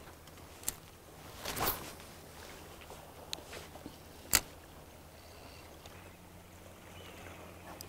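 Fishing rod and spinning reel being worked while jigging: a brief swish about one and a half seconds in and a few sharp clicks, the loudest a little after four seconds, over a steady low hum.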